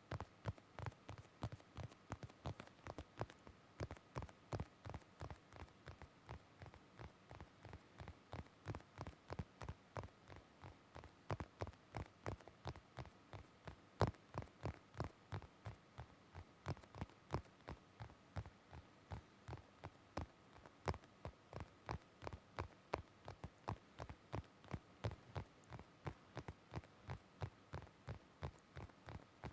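Close-up ASMR tapping on an object: a steady run of soft taps, about three a second, with one sharper tap about halfway through.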